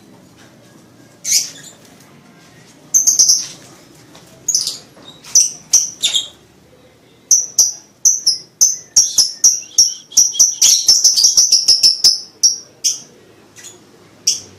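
Lovebird chirping in its breeding season: sharp, high-pitched chirps, scattered at first, then a rapid run of chirps near the end.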